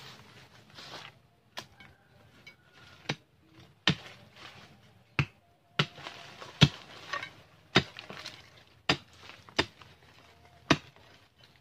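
A long pointed digging bar stabbed repeatedly into hard, stony soil, about ten sharp strikes roughly a second apart, loosening the ground to pry a small shrub out by its roots. Dry leaves rustle briefly near the start.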